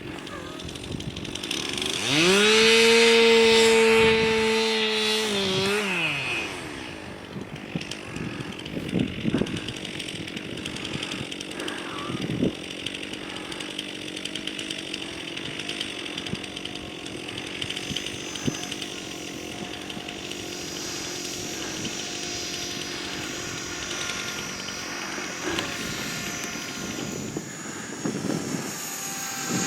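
Electric model helicopter's motor and rotors whining in flight. The whine rises in pitch and grows loud about two seconds in, holds steady, then drops and fades near six seconds, and goes on as a fainter steady buzz that shifts slowly in pitch.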